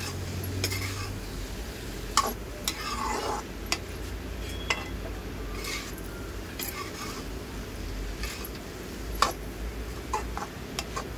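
Metal spatula stirring corn kernels around a metal kadai, with irregular clinks and scrapes of metal on metal; the sharpest knocks come about two seconds in and again near the end.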